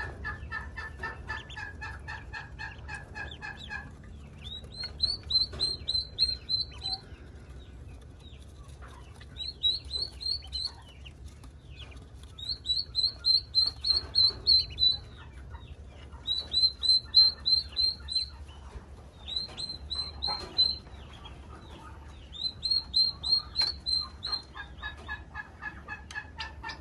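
A group of ducklings peeping: runs of rapid, high chirps, about eight a second, in bouts of a few seconds with short pauses between. A lower-pitched chirping joins in at the start and again near the end.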